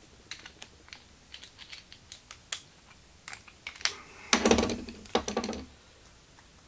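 Small clicks and taps of hands handling a stepper motor, its mounting screws and nuts and white plastic spacer blocks, then a louder, denser run of clicking and scraping for about a second and a half starting just past four seconds in as a spacer block is worked off the motor's screws.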